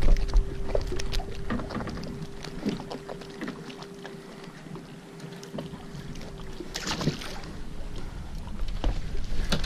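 Small fishing boat on the water: water lapping at the hull, with scattered short knocks and clicks and a faint steady hum that stops about seven seconds in.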